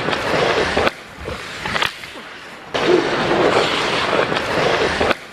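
Ice skate blades scraping and carving across the rink ice in two long loud stretches, with a quieter gap about a second in that holds a sharp click or knock.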